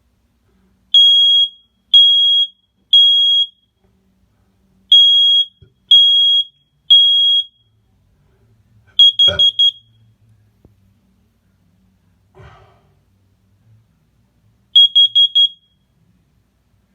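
Smoke alarm sounding under test: a loud, high-pitched beep in the standard three-beep evacuation pattern, given twice. Then come quick bursts of four short chirps, the first with a thump about nine seconds in and the second near the end.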